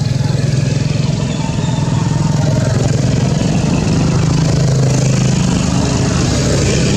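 An engine running steadily with a low hum, growing a little louder over the first few seconds.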